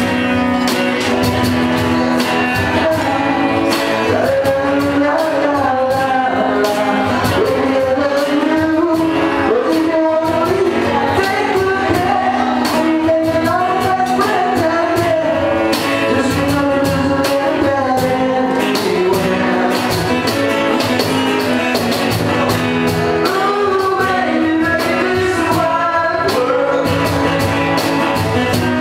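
A live rock band playing, with a singer over guitar and drums keeping a steady beat.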